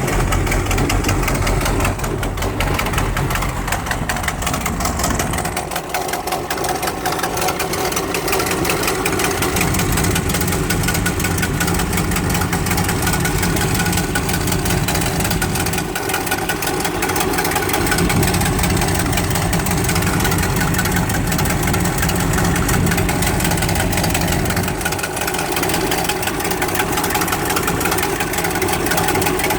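Vehicle engine idling, with the rapid even ticking puffs of an exhaust leak.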